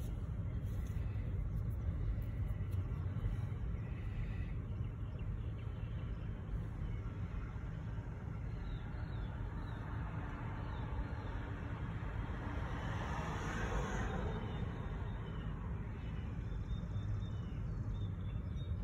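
Steady low rumble of road vehicles heard from inside a car's cabin, with a vehicle passing close by, swelling and fading about thirteen to fifteen seconds in.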